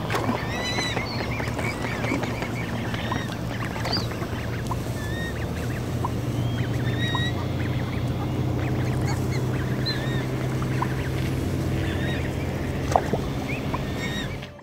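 Geese and ducks calling in short, high calls, scattered over a steady low hum. A single sharp knock comes near the end.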